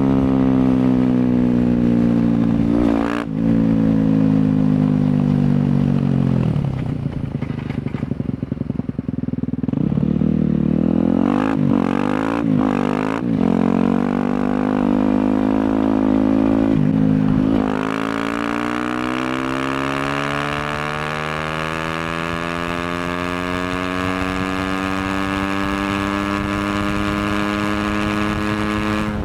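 Yamaha WR250F's single-cylinder four-stroke engine through an FMF exhaust, revs falling over the first few seconds, then dropping and climbing several times in quick succession around the middle. From a little past halfway to the end, the revs rise slowly and steadily.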